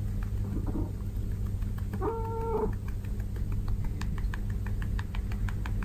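Domestic cat giving one short, level-pitched meow about two seconds in. After it comes a run of light, quick ticks, about four or five a second.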